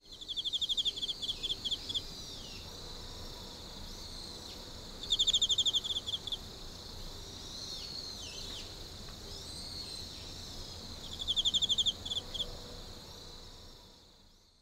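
Outdoor nature ambience of birds singing, with short sweeping chirps and a rapid high trill that recurs about every five to six seconds. It fades out near the end.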